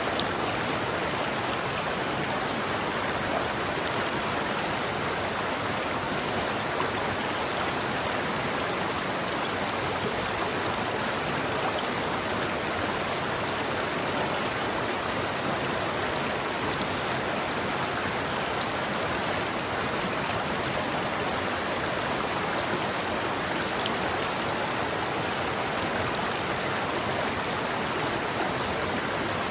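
River water flowing over rocks, a steady rushing with faint splashes and trickles.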